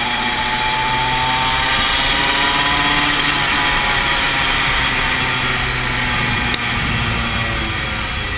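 Tony Kart KZ125 shifter kart's 125cc two-stroke single-cylinder engine running hard on track, its pitch rising and falling with the revs, with a short click about six and a half seconds in.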